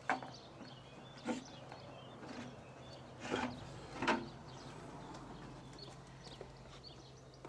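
Four short knocks and clatters as a crimped downpipe elbow and a length of downpipe are handled and pushed together, spread over the first four seconds or so.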